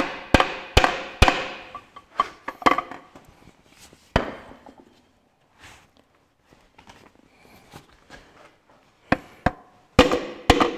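Hammer blows on a wooden drift, driving a piston and connecting rod out of a Ferguson 23C diesel engine block: sharp knocks with a short ring, about three a second at first. After a lull with one knock and a few faint taps comes another quick run near the end.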